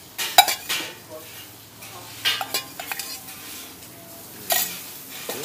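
Metal spatula clanking and scraping on a hot griddle as pre-cooked minced beef is reheated, with a light sizzle underneath. The loudest clank comes about half a second in, with more around two and a half seconds and again near the end.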